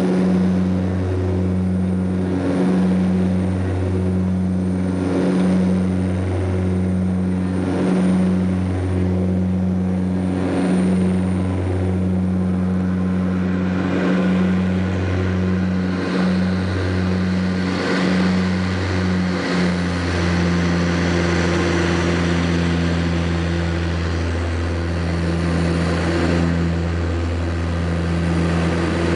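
Saab 340's General Electric CT7 turboprops and propellers droning in the cabin during the climb after takeoff: a low, steady propeller hum that pulses about every second and a half, the beat of the two propellers turning slightly out of step, then evens out to a smooth drone about two-thirds of the way through.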